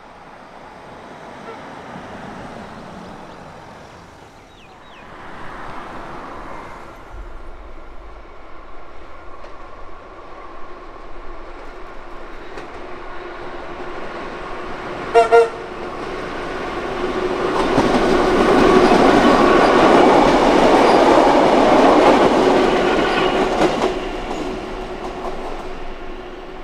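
Vintage Tait electric suburban train approaching and running past, loudest as it goes by in the second half. A brief toot of its horn sounds about halfway through, just before it passes.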